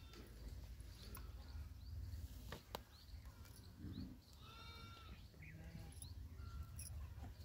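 A farm animal bleats once, briefly, about four and a half seconds in, over a steady low rumble, with a few faint chirps and a couple of sharp clicks before it.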